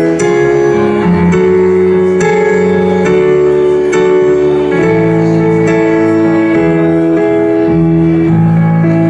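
Korg electronic keyboard playing an instrumental passage of sustained chords, the harmony changing about once a second.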